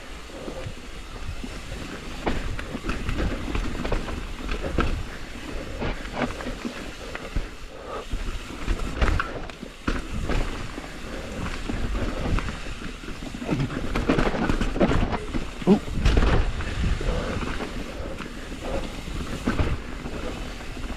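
Transition TransAM hardtail mountain bike riding down dirt singletrack: the tyres rumble over roots and rocks, and the chain and frame knock and rattle over the bumps, heaviest about two thirds of the way through, with wind rumbling on the microphone.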